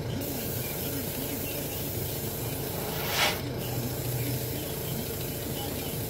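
Airbrush giving a short puff of spray hiss about three seconds in, over a steady low hum and hiss.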